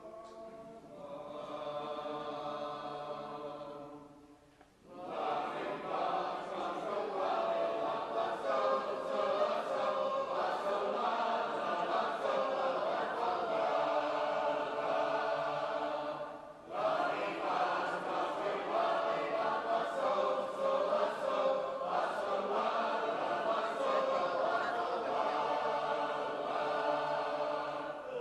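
Shape-note singers singing a cappella as a group. A held chord dies away about four seconds in. Full singing then starts and runs on, with a short break about seventeen seconds in before the voices come back in.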